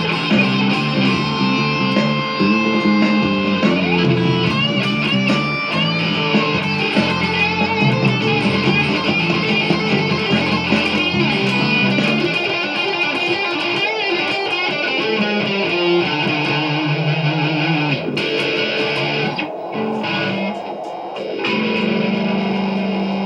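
Electric guitar playing over a backing track. Near the end the playing gives way to a steady held tone.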